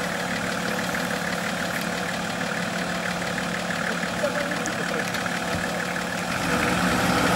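Nissan Patrol's engine running steadily at idle, getting louder about six seconds in.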